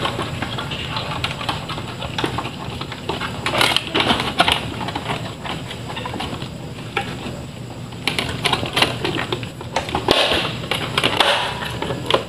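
An air-conditioner circuit board being handled and pressed into its plastic housing: irregular clicks, taps and scraping of the board and wires against the plastic. A steady low hum runs underneath.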